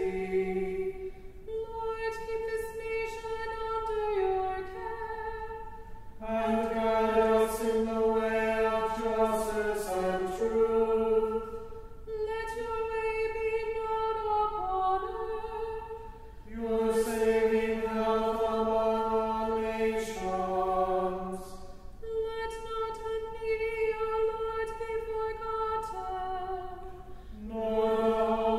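A small group of voices singing a cappella in slow, held phrases of a few seconds each, with a lower part joining in on some phrases.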